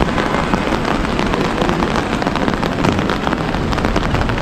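Rain falling on a wet city street, a steady hiss broken by many small close ticks of drops, with traffic noise underneath.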